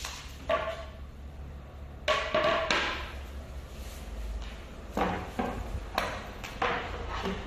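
Wooden furniture panels being handled and fitted together: a series of separate knocks and scraping bumps, a few with a short ringing tone, over a steady low hum.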